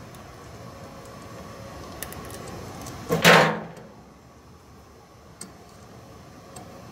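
Hand tool set down onto the sheet-metal top of a microwave oven: one short clatter about three seconds in, over steady background noise, with a few light clicks of wire being handled.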